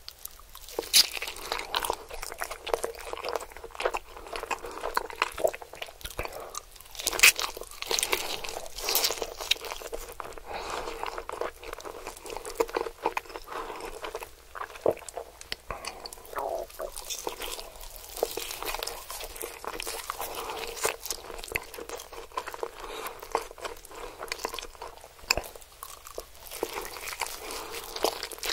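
Close-miked eating of roast chicken dipped in melted cheese sauce: biting, crunching and wet chewing, a dense run of sharp crackles.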